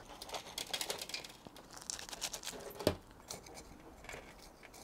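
Fingers pressing and working a gritty bonsai soil mix of pumice, akadama and lava rock around a larch's roots in a small terracotta pot: a run of small crunches and grainy rustles, with one louder knock about three seconds in.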